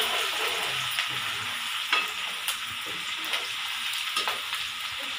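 Chopped onion and garlic sizzling in hot mustard oil in a steel kadhai, stirred with a steel ladle that scrapes and clicks against the pan a few times.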